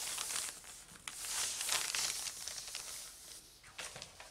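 Hands smoothing and sliding across fabric spread flat on a cutting table: a soft rustling hiss that swells about a second in and fades, with a few light clicks near the end.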